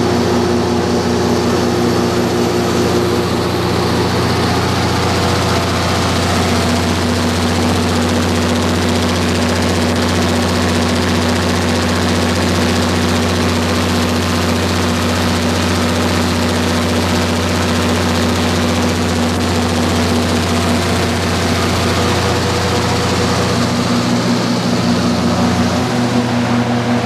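A 175 kW Cummins/Onan diesel generator set running steadily with a loud, even drone, its tone shifting slightly near the end.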